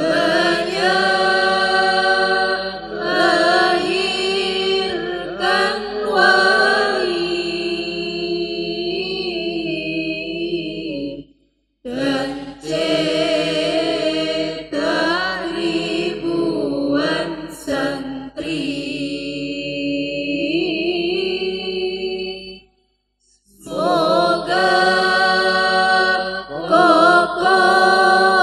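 A group of young men and women singing an Arabic farewell syair (sung poem) in unison through microphones, in long held, wavering phrases. The singing breaks off briefly twice, about 11 and 23 seconds in, between verses.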